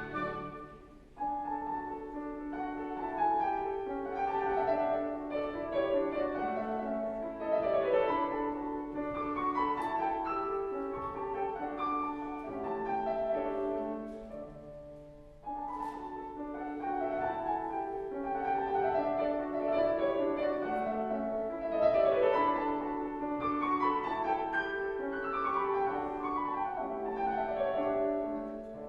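Instrumental classical-style piano music, played in phrases of decaying notes, with short breaks about a second in and again around the middle.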